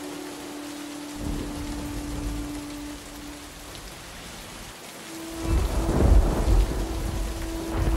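Heavy monsoon rain pattering steadily on water and leaves. Thunder rumbles about a second in, then a louder, longer roll of thunder starts about five seconds in.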